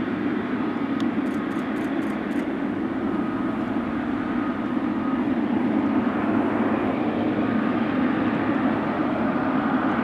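Boeing 777F freighter's GE90 turbofan engines running at low thrust as the jet rolls past after landing: a steady jet rumble that grows slightly louder about halfway through.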